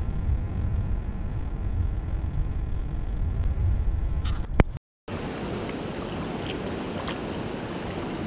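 Car road noise heard from inside the cabin: a steady low rumble of engine and tyres, with a short high squeak just before it cuts off about five seconds in. Then a steady rushing hiss of flowing river water and wind on the microphone follows.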